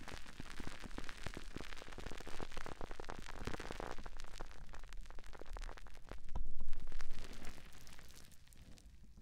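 Sponge squeezed and rubbed against a microphone, giving a dense crackle of small pops. It swells loudest about six to seven seconds in, then fades near the end.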